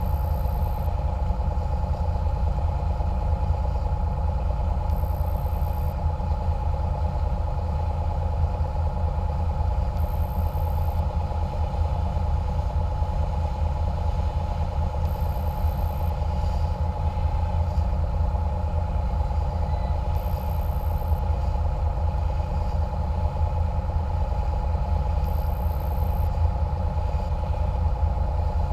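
Catamaran cruiser's engine running steadily under way: a constant low drone with a steady hum above it, unchanging in pitch and level, heard from on board.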